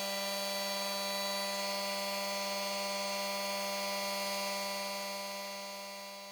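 Small 775 DC motor running at a steady speed on a PWM speed controller, giving a constant buzzing hum that fades out near the end.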